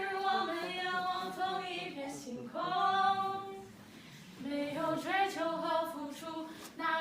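High-school girls singing a song together, with a short break about four seconds in before the singing picks up again.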